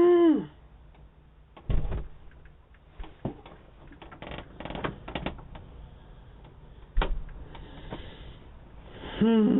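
Scattered sharp clicks and knocks, some in quick clusters. A loud, drawn-out pitched call dies away about half a second in, and another begins near the end.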